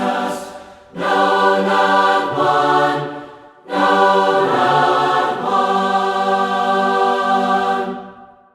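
A group of voices singing a hymn a cappella in harmony, in three phrases with long held notes; the last chord fades out near the end.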